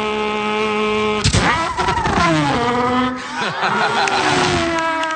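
A man's voice imitating a Formula One race car engine. It holds a steady high note, then about a second in gives a sharp burst and drops in pitch step by step like downshifts under braking. It then climbs and holds again as if accelerating out of a corner.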